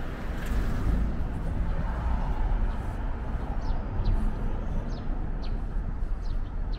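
Outdoor street ambience with a low steady rumble. In the second half a small bird gives about half a dozen short, quick falling chirps.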